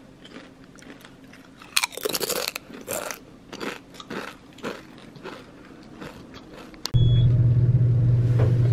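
Someone biting into and chewing crisp sweet potato chips: a run of loud crunches about two seconds in, then slower, spaced crunches of chewing. About seven seconds in this cuts off abruptly and gives way to a loud, steady low rumble.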